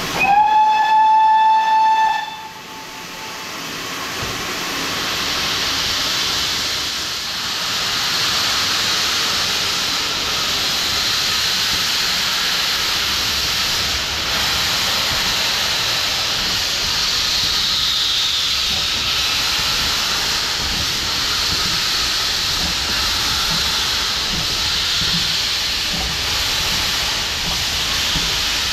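GWR Hall-class steam locomotive Wightwick Hall gives one whistle of about two seconds, then a steady hiss of steam builds and carries on as it starts away with its cylinder drain cocks open.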